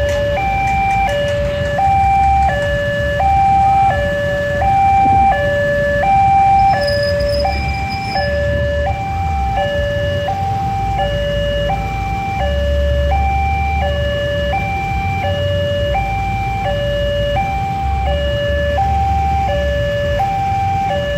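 Railway level-crossing warning alarm sounding its two-tone electronic signal, switching between a higher and a lower pitch about every half second, over a low rumble of waiting motorcycle engines. The alarm signals that the barrier is down for an approaching train.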